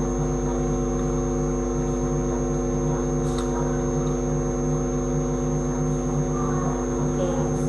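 Steady electrical hum and buzz: several fixed tones sounding together with a thin high whine above them, unchanging throughout, carried over an online video call's audio.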